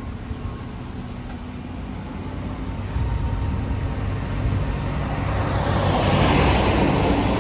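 Road traffic with a vehicle passing close by, its noise swelling about three seconds in and loudest near the end.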